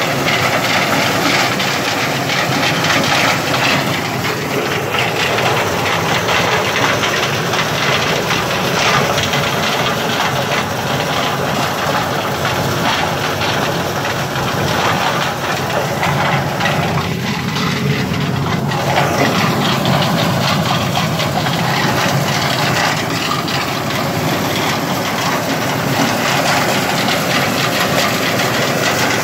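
Motorised maize sheller running steadily while corn is fed through it: a loud, dense mechanical noise of the engine and the shelling drum, with a short dip in the hiss about two-thirds of the way in.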